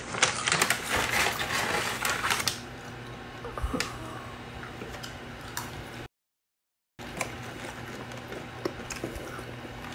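Crackling, hissy noise with many clicks for about two and a half seconds, then quieter room noise with a low steady hum and occasional clicks. About six seconds in, the sound cuts out completely for about a second, then returns.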